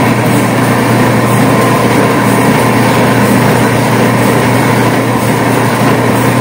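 Pressure washer's electric motor running, belt-driving the pump, with a loud, steady low hum and mechanical whir.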